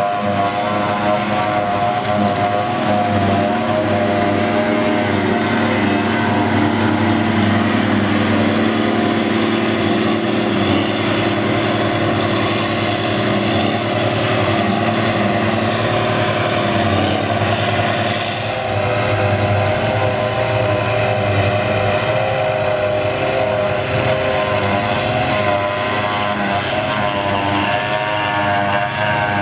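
John Deere 7400 self-propelled forage harvester running steadily under load as it picks up and chops grass for silage, with a Valtra tractor running alongside as it takes the chopped grass into its trailer. The engines give a steady heavy drone, and the tone changes slightly about two-thirds of the way through.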